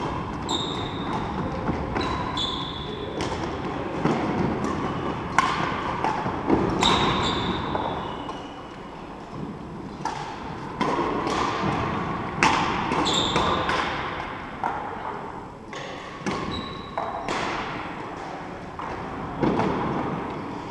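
Badminton rally: rackets striking the shuttlecock in quick exchanges, with trainers squeaking on the wooden court floor and footsteps, all ringing in a large sports hall.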